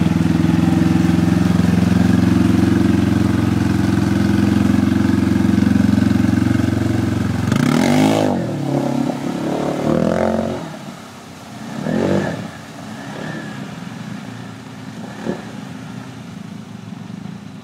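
Arctic Cat ATV engine running hard and steady close by, then revved in several quick rises and falls about eight to twelve seconds in as the quad ploughs through the flooded ditch, after which it fades as the machine pulls away.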